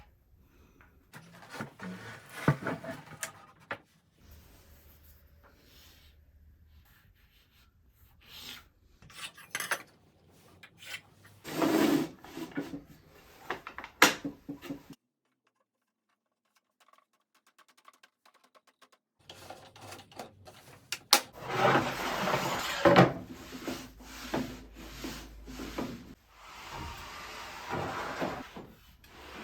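Wooden boards being handled: slid and rubbed against a work surface or each other, with scraping spells and several sharp knocks. A gap of dead silence falls near the middle.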